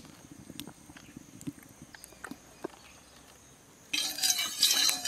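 A few faint clicks, then about four seconds in a loud crackling sizzle of hot mustard oil frying in an iron kadai over a wood fire starts suddenly.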